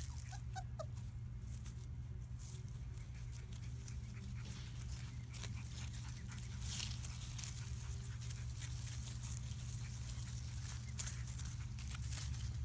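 Three-week-old British Labrador puppies moving and snuffling about in grass, with scattered rustles and crackles and a few short squeaks about half a second in, over a steady low hum.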